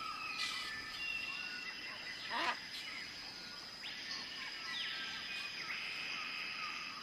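Tropical jungle ambience: a steady high drone of insects on two pitches, with scattered bird calls over it, the loudest a short falling call about two and a half seconds in and a trilling call around four to five seconds.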